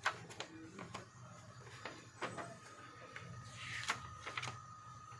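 A string of irregular sharp clicks and knocks from hard objects being handled, the loudest at the very start and a short rustle before a click near the end, over a faint steady hum.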